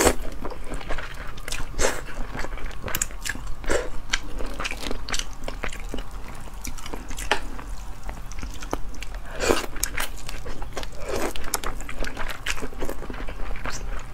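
Close-miked slurping and chewing of cold noodles, in irregular short wet bursts.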